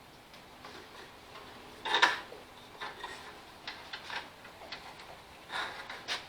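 Scattered light clicks and knocks of hands working a lawn tractor's wiring harness and plastic plugs, with a louder clatter about two seconds in and another near the end.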